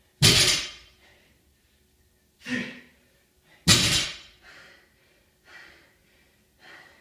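A person breathing hard from exertion: two loud, forceful breaths a few seconds apart, then quicker, fainter panting about once a second.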